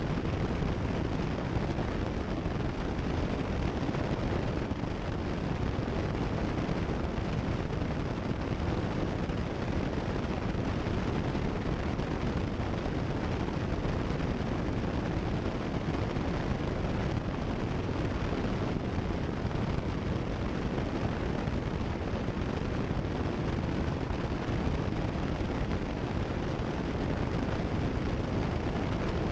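Steady engine and propeller noise of a Cessna 172 Skyhawk in level flight, heard in the cockpit through the headset intercom.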